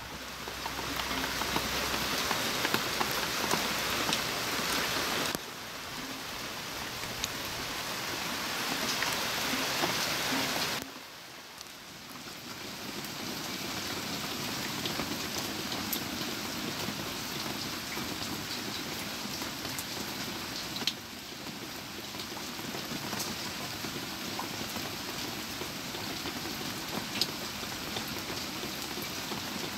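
Heavy rain falling steadily, with the sharp ticks of single drops hitting close by. The sound changes abruptly a few times.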